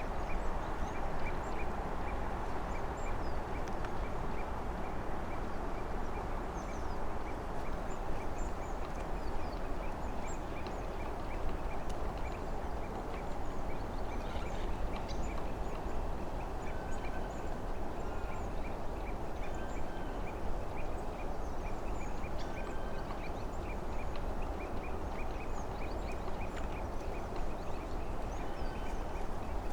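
Spring woodland ambience: a dense, unbroken chorus of quacking calls, with small birds chirping high above it and a few short whistled notes scattered through.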